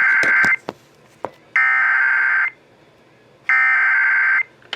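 Emergency Alert System SAME header: three shrill, buzzing bursts of two-tone data, each about a second long and about a second apart, with a couple of short clicks between the first two. It is the coded header that opens a flash flood warning alert on the radio.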